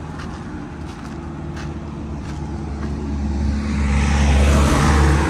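A motor vehicle's engine drones low and grows louder as it drives past close by, loudest about four to five seconds in.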